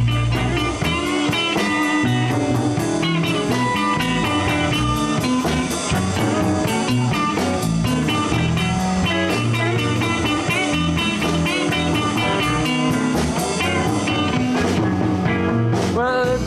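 Live blues band playing an instrumental break: an electric guitar plays lead runs of quick notes over bass guitar and a drum kit keeping a steady beat.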